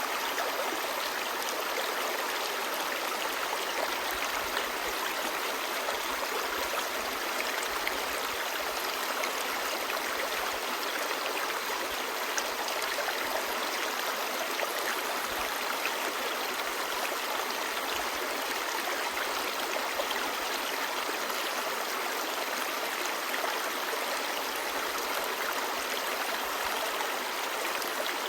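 Clear shallow stream babbling over stones, a steady rush of running water that holds even throughout.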